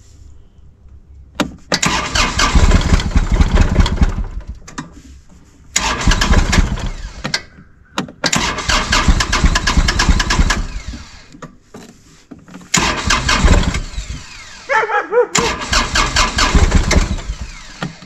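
Kubota tractor's diesel engine cranked on its starter four times, each try lasting two to four seconds with a rhythmic chug, without catching: too cold to start even after warming the glow plugs.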